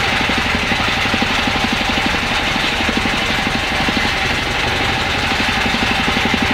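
A boat's engine running steadily while trolling, a fast even chugging, under the steady rush of the wake churning behind the stern.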